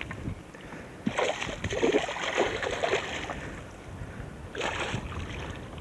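A hooked bass splashing and thrashing at the water's surface as it is played to the boat: a longer bout of splashing about a second in and a short splash near the end, over a low steady rumble.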